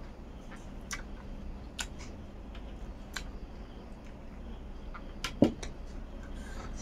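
Quiet hand-eating sounds: fingers working rice and snail curry on a steel platter, with scattered sharp clicks and one louder knock about five and a half seconds in, over a low steady hum.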